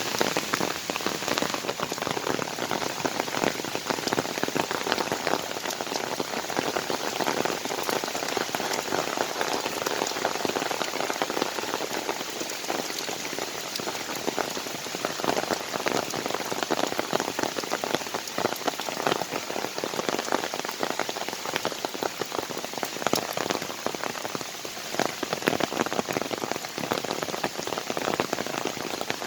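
Steady rain falling in a forest: a constant hiss dense with the patter of single drops.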